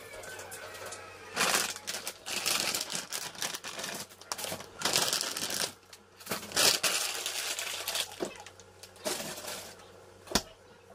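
Aluminium foil crinkling and rustling in irregular bursts as it is handled, ending with a single sharp click.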